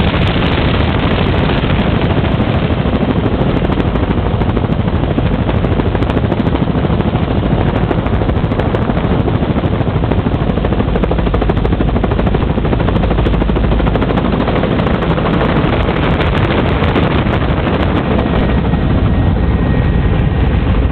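Helicopter rotor and engine noise heard from inside the cabin, loud and steady, as the helicopter descends over the village and sets down.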